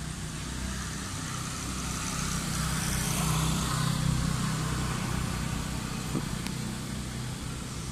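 A motor vehicle's engine running, growing louder toward the middle and then fading again, as if it passes by. A short click comes about six seconds in.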